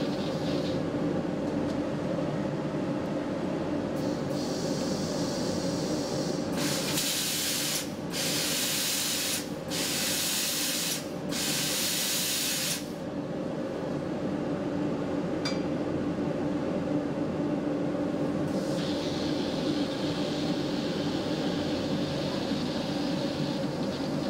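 A Gema OptiFlex 2 manual electrostatic powder-coating gun spraying powder on compressed air: a loud hiss in four bursts with short breaks, from about a quarter to halfway through. Under it runs a steady machine drone.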